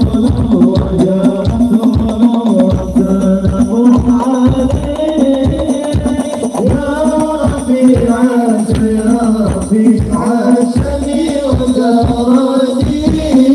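Sholawat singing with frame drums and a deep, regular bass-drum beat, played loud through a large stage sound system.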